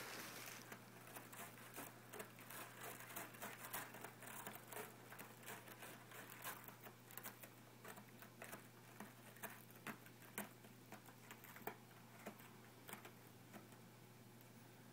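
A cat's claws scratching a scratching post: quick, irregular scratchy strokes that thin out and stop near the end.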